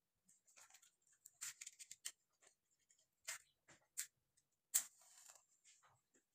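A match struck against a matchbox: several short scratching strikes, the loudest just under five seconds in, followed by a brief hiss as it flares.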